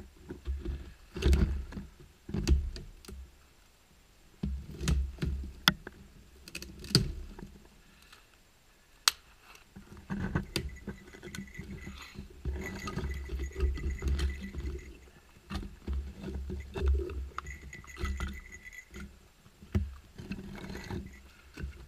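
Dry sticks and twigs being handled and snapped: scattered sharp cracks among irregular scraping and rustling, busiest in the second half.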